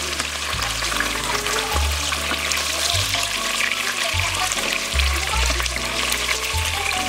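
Background music with a steady, slow bass line over the crackling sizzle of oil frying in a pan.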